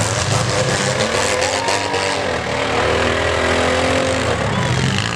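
Demolition derby cars' engines revving, their pitch rising and falling, with several sharp knocks in the first couple of seconds as metal strikes metal.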